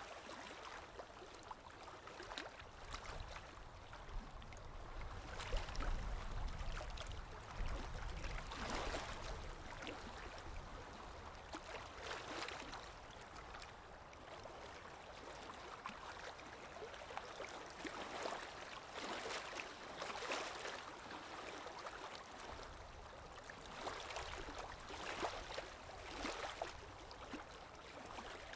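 Stream water running and gurgling steadily, with uneven louder splashing surges every second or two, and a low rumble partway through.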